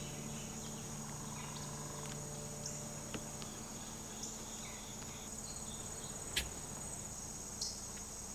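Insects trilling steadily at a high pitch, with scattered short bird chirps and a sharp click about two-thirds of the way through.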